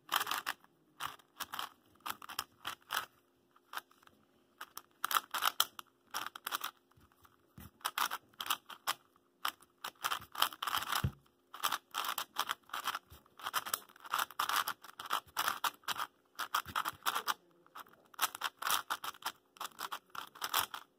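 A YuXin Little Magic 4x4 M plastic speedcube turned fast during a solve: quick runs of clicking, scraping layer turns with short pauses, the longest about four seconds in. The turning is still sandy, though the cube has been lubed with Maru lube.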